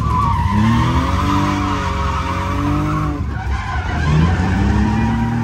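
Drift car sliding: its engine revs rise and fall over a steady tire-skid hiss, with a brief lift-off about three seconds in before the revs climb again.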